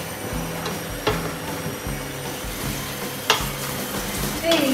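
Wooden spoon stirring meat in a stainless-steel stockpot, with two sharp knocks of the spoon, about a second in and a louder one about three seconds in.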